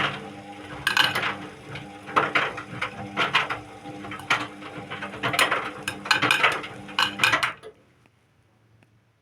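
Indesit WIU 81 washing machine on its quick 30° programme, the motor humming as it turns the drum, with irregular clinking and clattering over the hum. The drum stops about three-quarters of the way in.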